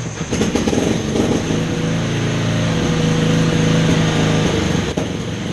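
A 1996 Craftsman lawn mower's engine running steadily at full throttle, with a brief dip about five seconds in.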